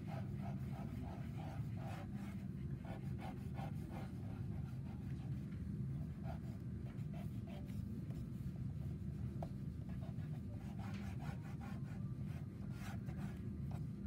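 Sienna conté crayon scratching on drawing paper in short strokes, mostly near the end, over a steady low room hum.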